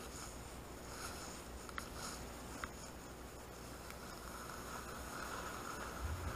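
Faint, muffled hiss of a snowboard sliding slowly over snow, heard through a waterproof action-camera housing, with a couple of small clicks and a low rumble coming in near the end.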